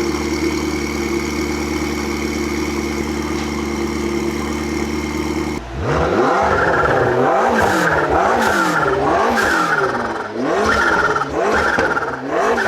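McLaren MP4-12C's twin-turbo 3.8-litre V8, tuned to over 700 hp, running at a steady note, then from about five and a half seconds in revving up and down about once a second, with short sharp noises between the revs.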